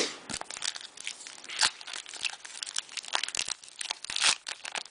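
Foil trading-card pack wrapper crinkling and tearing as it is ripped open and handled, an irregular run of crackles with a couple of louder crunches.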